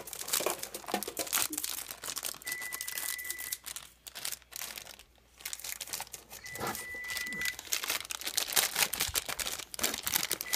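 Foil blind bag of a Hot Wheels mystery car crinkling and tearing as it is picked open by hand, in a dense run of crackles with a short lull about four seconds in.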